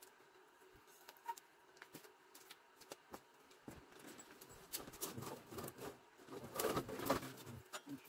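Wood fire of logs and kindling crackling with scattered sharp pops, growing into louder, irregular crackling and snapping from about five seconds in.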